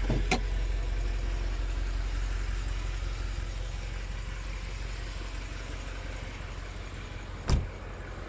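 BMW F90 M5 Competition's twin-turbo V8 idling with a steady low drone that slowly fades. There are a few light clicks at the start and one sharp thump near the end.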